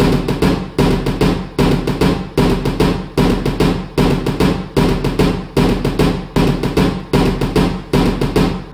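Low electronic pulse repeating about every 0.8 seconds, each beat starting sharply and fading away before the next.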